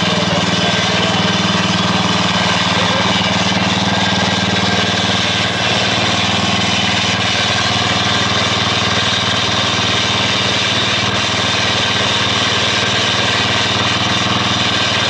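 Small gasoline engine of a stand-mounted core drill running steadily while the water-fed bit cuts an 8-inch hole in concrete.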